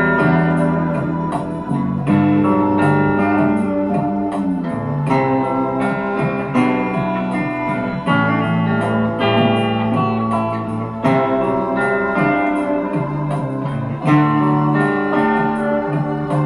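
Instrumental music: guitar over keyboard chords and a bass line, the chords changing every few seconds.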